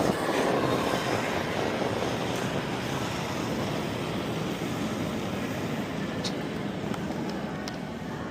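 A granite curling stone rumbling steadily as it slides down the pebbled ice, loudest at the release and slowly fading as it travels away.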